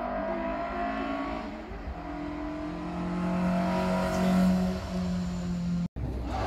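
Hillclimb competition car's engine running hard under acceleration, its pitch shifting with the revs, then holding a steady high note. The sound cuts off abruptly near the end and resumes with a different engine tone.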